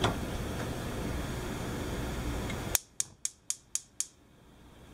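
Gas range's spark igniter ticking six times, about four a second, as the burner knob is turned to light; the burner catches once the ticking stops. A steady low hiss comes first and drops away just as the ticking starts.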